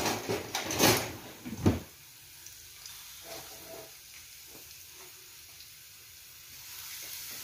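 Several sharp kitchen clatters and knocks in the first two seconds, then the faint steady sizzle of grated onion and garlic frying in olive oil in a frying pan, growing louder near the end.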